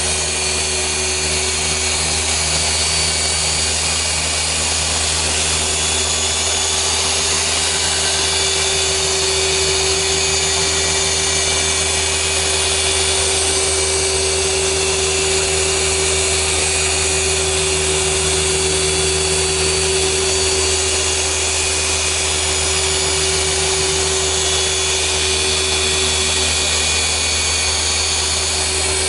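Rupes LHR15 random-orbital polisher running at a steady speed, its yellow foam pad working polish over car paint during a paint-correction pass. A constant motor hum with one steady whine, unchanging throughout.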